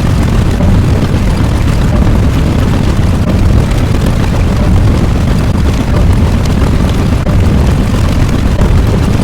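A loud, steady rumbling roar, heaviest in the deep bass, that runs on without a break.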